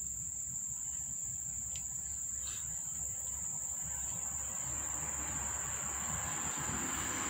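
Insects trilling, a steady high-pitched drone that does not break, with a faint low rumble underneath.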